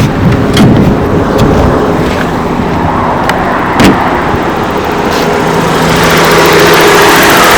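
Toyota 5A-FE 1.5-litre four-cylinder engine running steadily, with a few sharp clicks, growing louder near the end. The owner takes its knock for worn camshafts.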